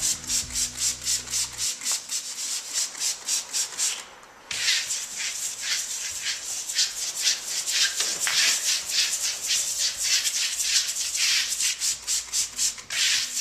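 Trigger spray bottle pumped again and again, misting water onto a clay plaster wall to wet it before trowel compression: short hissing squirts at about three or four a second, with a brief pause about four seconds in.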